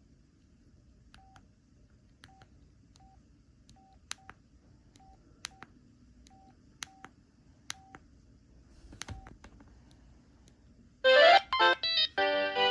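Samsung SPH-N400 cell phone: faint, irregular single key beeps and button clicks as its ringtone menu is stepped through, then about eleven seconds in the next ringtone starts loudly with a rising run of electronic tones.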